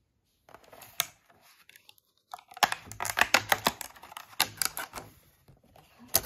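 Thin paperboard ice-cream box being torn open along its perforated strip: crisp crackling tears in a dense run through the middle, with a sharp click about a second in and another near the end.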